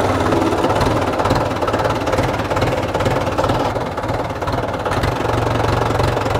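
Mahindra 475 DI tractor's diesel engine running steadily at low revs, just after being started, with an even, low pulsing beat.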